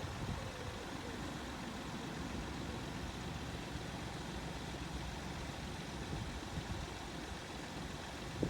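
Steady low engine rumble of an idling vehicle.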